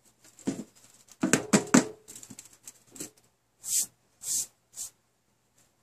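A thin-metal popcorn tin handled on a tabletop as it is lifted and turned over: several knocks and clanks, the loudest with a brief metallic ring, followed by three short swishes about half a second apart.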